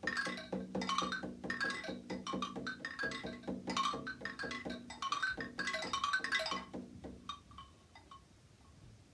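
Small percussion instruments struck in a quick patter of ringing notes, playing the rain. The notes thin out to a few scattered taps about seven seconds in and then stop.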